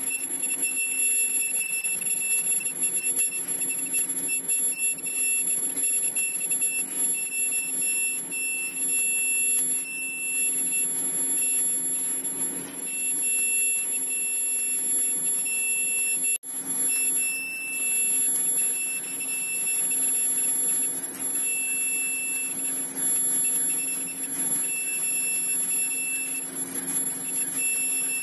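Automatic N95 mask-making machine running: a steady hum under several constant high-pitched tones, with a shrill tone that cuts in and out again and again like an alarm beep.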